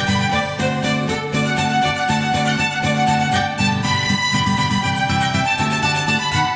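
Background music: a melody on violin over held string and plucked accompaniment.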